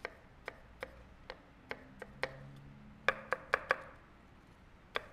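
Chef's knife chopping through diced onion onto a wooden cutting board. Single knocks come about every half second, then a quick run of four louder strokes a little past three seconds in, and one more near the end.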